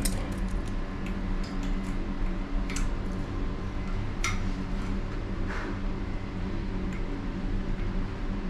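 Small Knipex pliers clicking and tapping as their jaws are set on a chrome shower arm and a toilet cistern's hose fitting: about half a dozen sharp, scattered metal clicks over a steady low hum.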